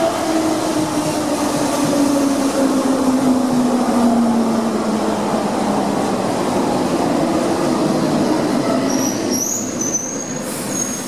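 Berlin S-Bahn electric train pulling into the platform and braking: its motor whine falls steadily in pitch over the first few seconds, and a high brake squeal sounds about nine and a half seconds in as it comes to a stop.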